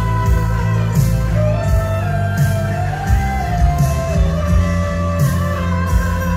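Live pop-rock band amplified in a large arena: a steady drum beat with cymbals and a heavy bass, under an electric guitar playing long held, bending notes.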